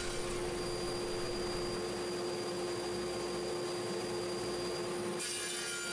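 Table saw running steadily: an even mechanical noise with a constant hum, brightening slightly about five seconds in.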